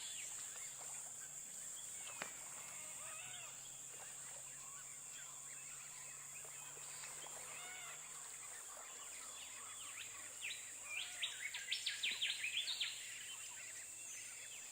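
Birds chirping and calling, with a quick run of louder, sharp chirps near the end, over a steady high hiss.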